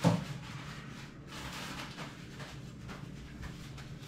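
A single short, loud thump at the very start, then quiet room tone with a low steady hum and faint handling rustles.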